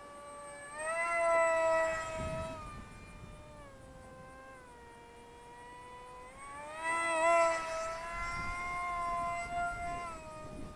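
Electric brushless motor and propeller of a Zeta Z84 flying wing whining in flight, the pitch rising and falling with the throttle: louder about a second in, sagging lower through the middle, and climbing again around seven seconds in. Wind buffets the microphone now and then.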